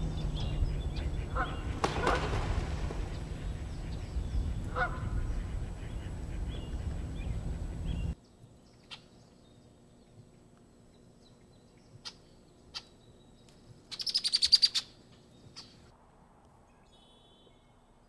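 Canada geese honking a few times over a steady low rumble; then, after an abrupt change to a quiet marsh, scattered short bird chirps and one loud, rapidly pulsed buzzy trill about fourteen seconds in.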